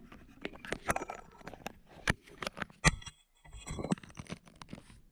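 Hand work on small metal and plastic parts: an uneven run of sharp clicks, taps and knocks with some scraping, and a brief ringing about three seconds in.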